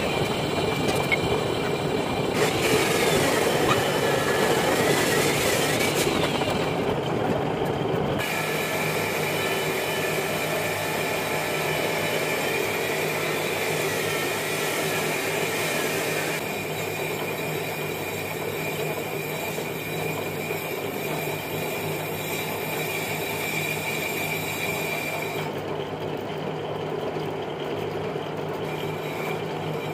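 A metal lathe spins a cast-iron car brake disc while the cutting tool faces (resurfaces) its rough braking surface. There is a steady machine hum, with a high metallic squeal from the cut that wavers in pitch at times.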